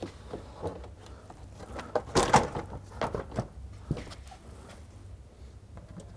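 Engine splash shield being pushed up into place under the car. There is a clatter of knocks and rattles about two seconds in, then scattered light clicks as its fasteners are fitted by hand.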